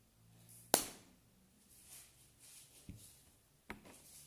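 Handling of a plastic glue bottle and its cap: one sharp click about a second in, then two fainter knocks near the end.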